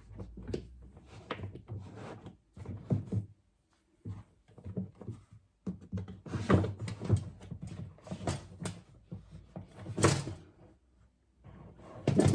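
Irregular knocks, clicks and thunks of a plastic panel being handled and pushed into place inside a fridge freezer, with a brief pause about four seconds in.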